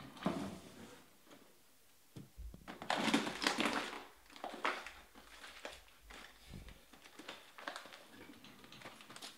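Crinkling and rustling of foil trading-card pack wrappers and cards being handled, in a series of short bursts; the loudest runs for about a second, roughly three seconds in.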